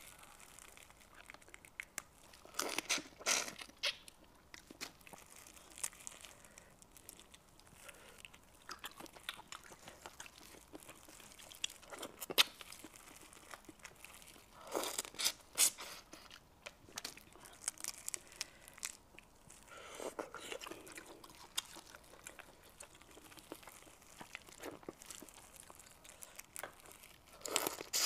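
Close-miked boiled crayfish being peeled and eaten: shells cracking and tearing under gloved fingers, with biting and chewing, in scattered crackly bursts.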